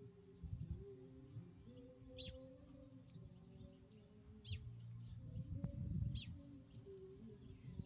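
A bird chirping, short high chirps about every two seconds, over a faint low hum and a few soft thumps.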